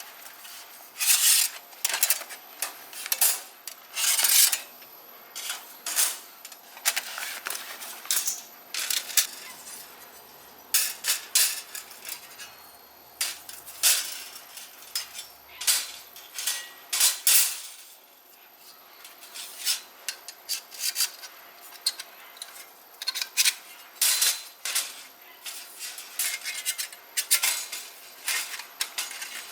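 Thin stainless steel plates clinking, clattering and scraping against each other as they are handled, in irregular clusters of sharp metallic clicks.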